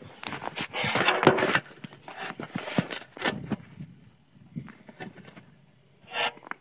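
Footsteps crunching on snow, with irregular scrunches and knocks, loudest about a second in.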